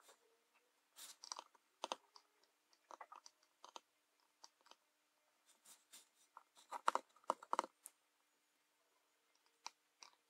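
Faint clicks and light scrapes of metal tweezers picking up small through-hole resistors and setting them onto a printed circuit board, with a quick run of louder clicks about seven seconds in.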